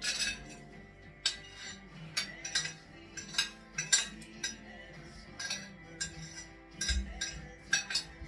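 Metal cutlery clinking and scraping against a plate as food is served, with about a dozen sharp clinks at irregular intervals. Faint music plays underneath.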